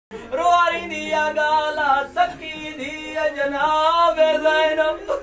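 A man's solo voice chanting a Shia mourning elegy (masaib), unaccompanied, in long held notes that waver in pitch, with a short breath about two seconds in.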